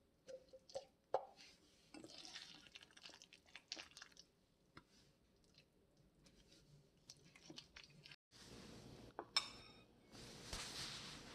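Thick, wet chili-and-salted-fish paste being worked with a utensil in a stainless steel bowl: faint squishing with scattered light clicks. A short soft hiss near the end.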